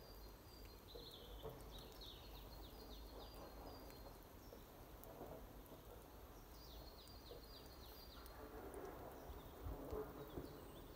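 Very quiet outdoor stillness in which a small songbird sings two short runs of quick falling notes, one near the start and one past the middle.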